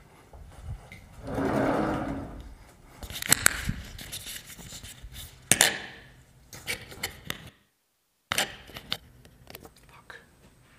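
Scattered knocks, clicks and scraping handling noises, with a louder noisy sound lasting about a second near the start and a sharp click a little past halfway. The audio drops to dead silence for under a second past the middle.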